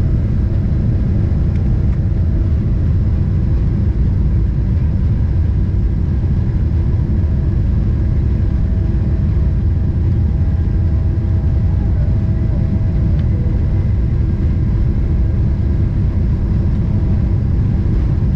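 Boeing 777-300ER's GE90 jet engines at takeoff thrust, heard from inside the passenger cabin: a loud, steady rumble with a few faint steady tones above it.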